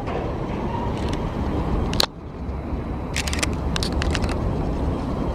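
Steady low outdoor rumble, with a sharp click about two seconds in and a quick cluster of clicks a little after three seconds, from the camera being handled and swung around.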